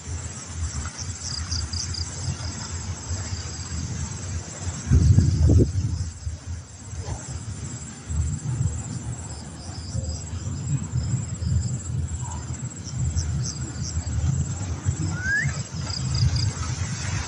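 Insects chirping in short, rapid pulsed trills, a few times, over a low wind rumble on the microphone that swells about five seconds in.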